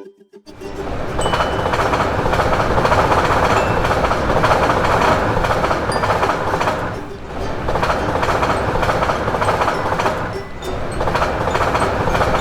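Train passing over the track: a loud, steady rumble of wheels on rail. It starts about half a second in after a brief silence and eases off briefly twice, about seven and ten and a half seconds in.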